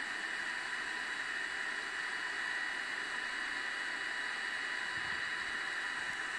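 Steady hiss with faint, constant high-pitched whine tones and no distinct events, like a recording's background noise.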